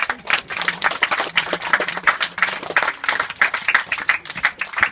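Audience applauding: a loud, dense patter of many hands clapping.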